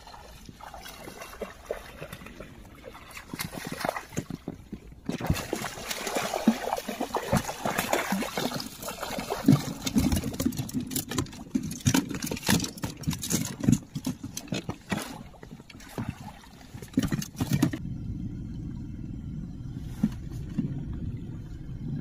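A hooked fish thrashing and splashing at the water's surface beside an inflatable boat: a run of irregular splashes and slaps, busiest in the middle and easing off near the end.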